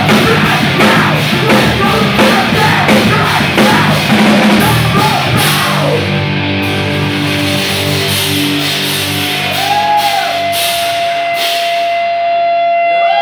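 Punk band playing loud live, drums and crashing cymbals under distorted guitars. About six seconds in the drums stop and the guitars ring out a held final chord, with a single steady high tone sounding over it near the end.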